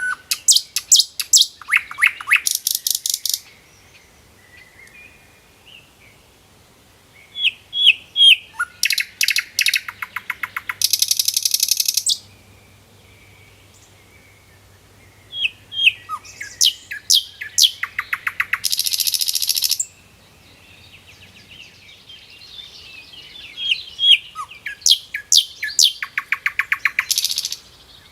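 A songbird singing in four phrases about seven seconds apart, each a run of quick, sharp notes that speeds into a fast trill, with faint chirps between phrases.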